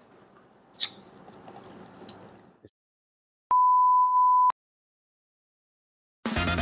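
A single steady, high-pitched electronic beep lasting about a second, starting and stopping abruptly, set in dead silence. Before it there is faint room noise with a light click; background music comes in near the end.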